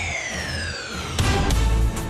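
Closing theme music: a falling sweep runs down in pitch, then about a second in a deep, bass-heavy hit comes in and the beat starts.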